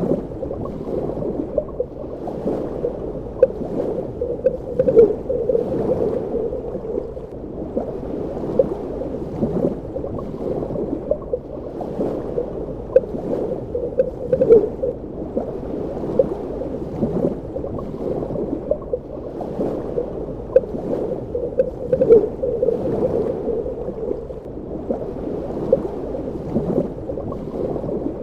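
Underwater ambience: muffled, low water movement with frequent small bubbling gurgles and pops scattered through it.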